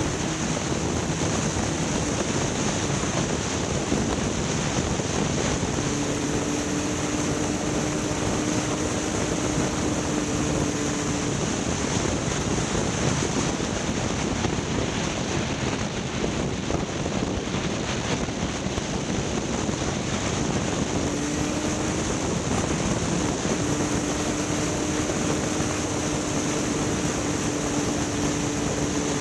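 Steady rush of wind and running vehicle noise while travelling, with a faint hum that fades in and out a few times.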